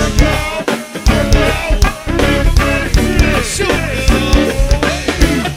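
Go-go band music: a drum-driven groove with a steady beat and pitched melodic lines over it.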